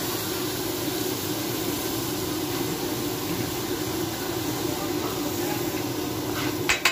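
Masala sizzling and steaming on a hot flat tawa griddle, a steady hiss. Near the end a metal spatula strikes the griddle in a few quick clacks.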